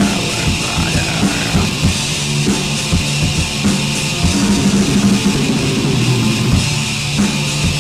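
Black metal music: distorted guitars held over fast, dense drumming.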